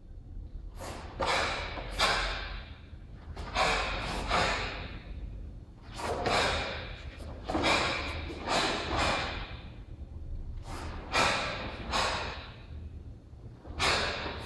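A karateka performing the Jion kata: a run of sharp, hissing bursts as he breathes out hard and his gi snaps with each strike and block. They come in quick clusters of two to four, with short pauses between.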